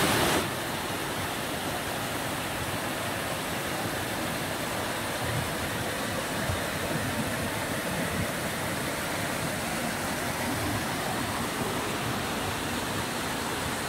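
Mountain stream rushing steadily as it tumbles over rocks in small cascades.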